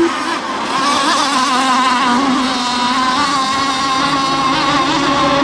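Several radio-controlled racing boats running flat out, their motors making a steady high whine that wavers in pitch as they race around the course.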